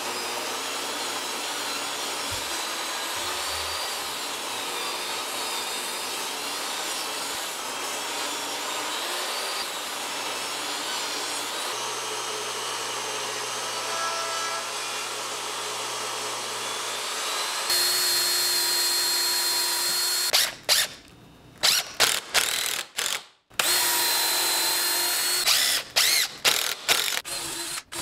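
Woodshop power tools: a long steady run of a table saw cutting lumber, with dust collection. About 18 s in it gives way to a cordless drill whining, then running in many short start-stop bursts as screws are driven into a wooden frame.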